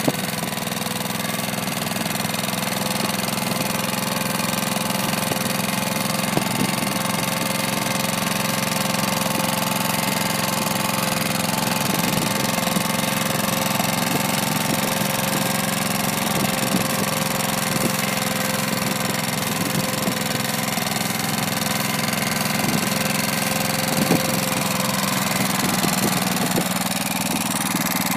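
Lombardini Intermotor LA400 engine of a Nibbi AE 11 two-wheel tractor running steadily under load as it pulls a single-furrow plough through the soil.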